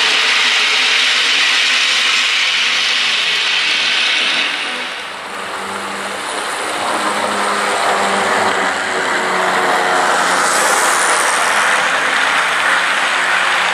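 HO scale model freight cars rolling past close by, a steady rush of metal wheels on the rails. The noise eases about five seconds in, then builds again as more cars pass.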